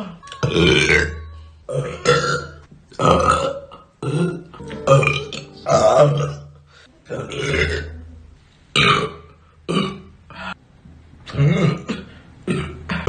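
A person burping over and over: about a dozen loud belches in quick succession, each under a second long.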